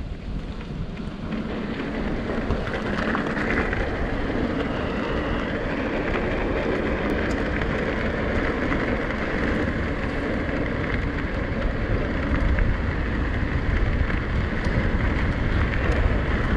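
Wind buffeting an action camera's microphone together with mountain bike tyres running over a rough, muddy trail at speed: a steady, rumbling rush that builds over the first couple of seconds and then holds.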